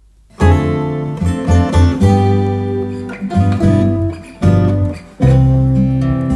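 End-screen music with strummed acoustic guitar, starting about half a second in.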